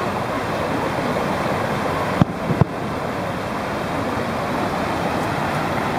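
Two sharp bangs from distant aerial firework shells bursting, a little under half a second apart about two seconds in, over a steady wash of background noise.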